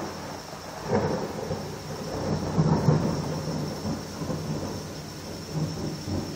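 Thunder rumbling and rolling, swelling suddenly about a second in and again near three seconds, then dying down into a low grumble.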